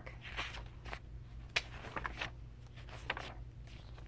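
Soft rustles and taps of a paperback picture book being handled and opened to its first page, several short strokes, over a faint steady low hum.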